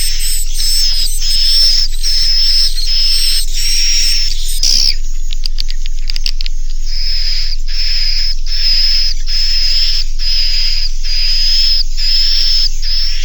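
Swiftlet roosting-lure recording: short, buzzy, high swiftlet chirps with a thin whistling tone, repeating steadily about one and a half times a second. About five seconds in, a quick run of clicks breaks the pattern before the chirps resume. It is the call played in swiftlet houses to get young birds to roost.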